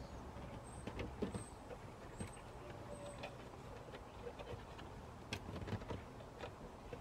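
Faint scattered clicks and taps of hands working at plastic dashboard trim under a car's dashboard, over a low steady hum.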